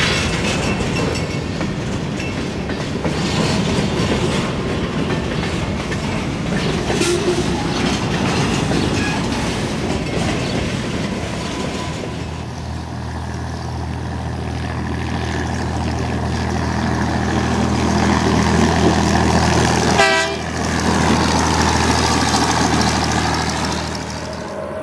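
Freight cars rolling past, their wheels clacking over the rail joints with a rattling rumble. About halfway through this gives way to a steady low engine drone, broken briefly by a sharp glitch near the end.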